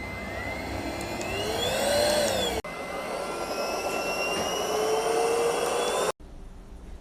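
Airbot Supersonics Aura cordless stick vacuum running, its motor whine rising and then falling in pitch over a steady rush of air. The sound breaks off abruptly about two and a half seconds in, resumes with a slowly rising whine, and cuts off sharply about six seconds in.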